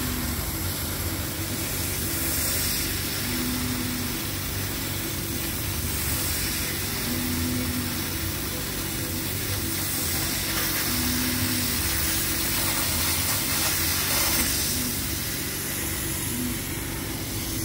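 A 100 W laser cutter running a cutting job on 18 mm plywood: a steady blowing hiss, with a short low hum that comes back about every four seconds.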